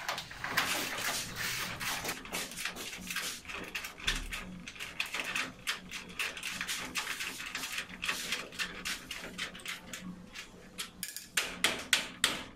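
Irregular light clicking and rattling of metal sliding-door hardware as a glass door panel with its roller hangers is handled. A quick run of sharper clicks comes near the end.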